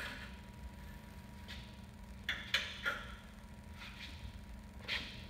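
A handful of short, sharp clicks and knocks, three of them in quick succession midway, from metal plate parts and fixture clamps being handled during assembly for welding. A steady electrical hum runs underneath.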